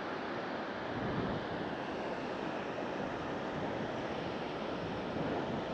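Steady rush of water pouring out through the dam's open spillway gates, four of seven open, throwing up heavy spray.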